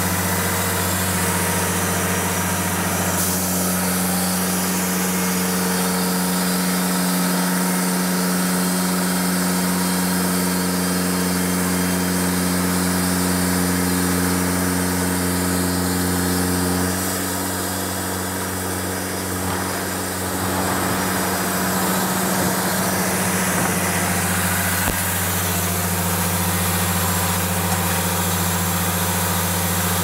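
Portable bandsaw mill running on its 49 hp Yanmar engine while the band blade cuts through a squared pine cant. The steady engine note shifts about three seconds in, drops for a few seconds after the middle, then comes back.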